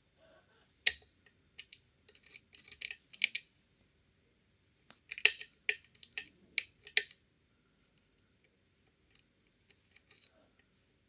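Metal clicks and scrapes of picks and a tension tool working the levers inside a Fichet five-lever cabinet lock: a sharp click about a second in, bursts of clicking around two to three seconds and again around five to seven seconds, then little more. A set lever slipping out of its gate is what the picker takes to have happened.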